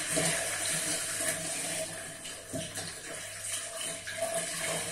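Water running from a kitchen tap into a sink, over a steady low hum.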